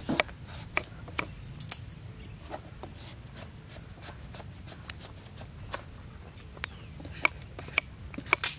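A small peeling blade cutting strips from a firm green papaya, giving scattered crisp clicks and short scrapes, a few close together about a second in and again near the end.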